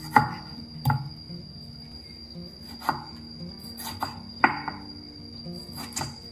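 A kitchen knife slicing a tomato and striking a wooden cutting board gives about six short, sharp knocks at irregular intervals. Quiet background music plays throughout.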